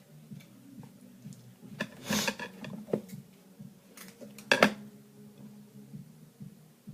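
Clicks and clatter of small hard objects being handled on a work surface: a short rattle about two seconds in and a sharp clack about four and a half seconds in, over a low steady hum.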